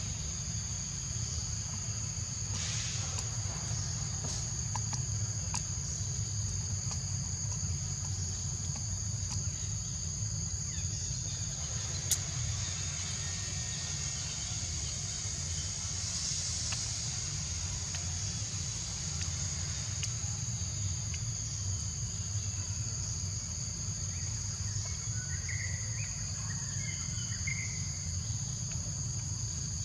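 Insects shrilling in a continuous steady drone, over a steady low rumble, with one sharp click about twelve seconds in.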